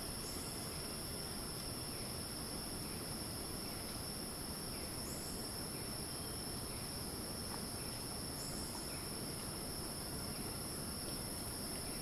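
Tropical cicadas shrilling in a steady, high-pitched continuous drone, with a few faint short chirps from other birds or insects.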